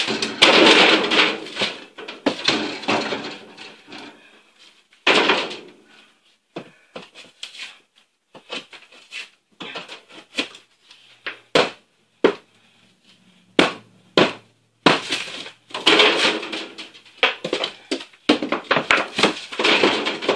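Ceiling being torn down by hand: irregular bursts of scraping and crumbling with sharp knocks and bangs between them, heaviest near the start and again over the last few seconds.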